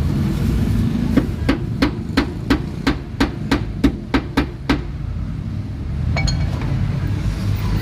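A run of about a dozen sharp, evenly spaced knocks, roughly three a second, then a single click a little later.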